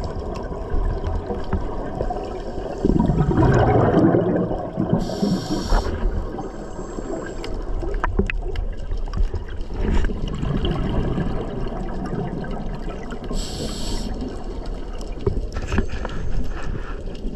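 Scuba diver breathing through a regulator underwater: two short hissing inhales about eight seconds apart, with bursts of exhaled bubbles gurgling and rumbling between them.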